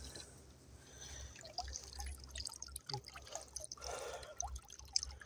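Faint drips and small splashes of shallow water at the edge of a rocky shore.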